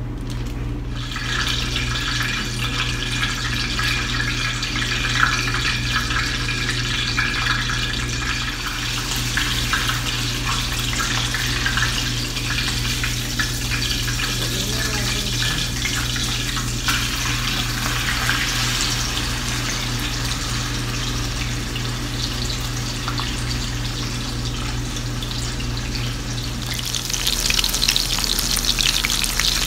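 Marinated milkfish (bangus) deep-frying in hot oil in a frying pan: a steady sizzle full of crackling and popping. It starts about a second in as the fish goes into the oil and gets louder near the end.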